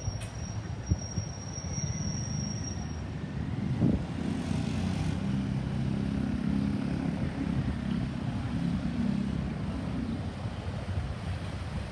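Road traffic: a motor vehicle's low engine hum swells about four seconds in and holds for several seconds over a steady rumble. A faint high-pitched steady tone dies away about three seconds in. No siren is sounding.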